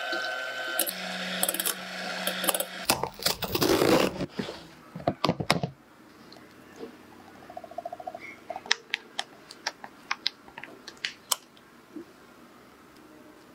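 Electric hand mixer whipping cream in a glass bowl: a steady motor whine with the beaters churning, loudest for a few seconds before it stops about six seconds in. After that come scattered light clicks and taps.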